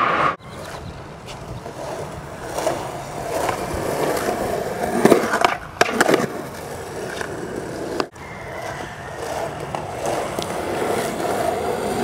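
Skateboard wheels rolling on concrete, with a couple of sharp clacks of the board striking the concrete around the middle.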